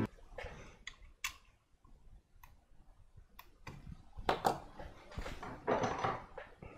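Scattered small clicks and plastic rustling from hands working a nylon zip tie around a bundle of fan wires, with two louder rustles in the second half.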